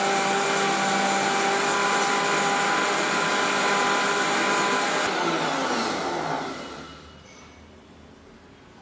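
Electric mixer grinder running in its small jar, grinding masala dry with no water added. About five seconds in it is switched off and winds down with a falling whine.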